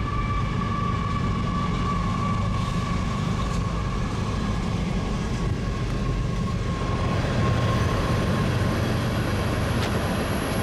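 A CSX freight train rolling by, a steady low rumble. A faint steady whine rides over it and fades out about seven seconds in.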